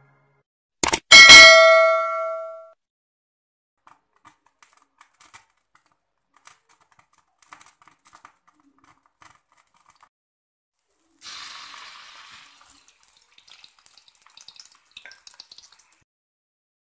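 A click and then a bell-like 'ding' sound effect about a second in, ringing out for about a second and a half: the notification-bell chime of a subscribe-button animation. About eleven seconds in, a brief sizzle as chopped shallots, garlic and tomato go into hot oil in a wok, followed by faint crackling.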